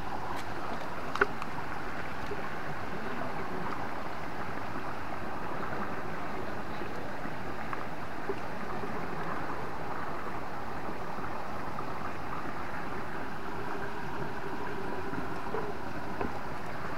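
Steady rush of flowing stream water, with a single sharp tap about a second in.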